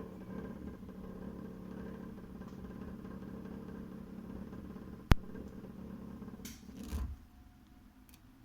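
Heating radiator making a steady, pitched humming drone with overtones, an unexplained noise from the radiator. A sharp click about five seconds in, then a short rushing burst near seven seconds, after which the hum falls away.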